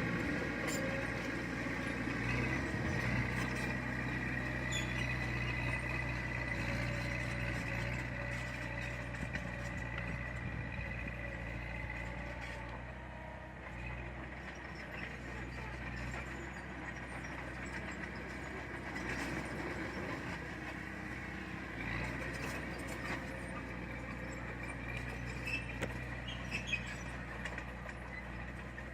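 Heavy diesel earthmoving machine running steadily: a low engine hum under a high whine that fades about halfway through, with a few light clicks and knocks.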